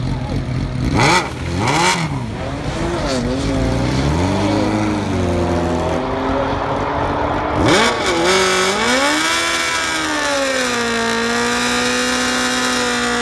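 BMW E90 335i's tuned twin-turbo straight-six running under changing throttle, its pitch rising and falling. There are two sharp bangs about one and two seconds in and an abrupt pitch drop near eight seconds. After that it holds a steady drone.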